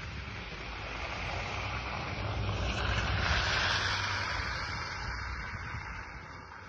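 A low vehicle engine rumble under a rush of road noise that swells about three seconds in and then fades away, as of a car passing on the wet, snowy street.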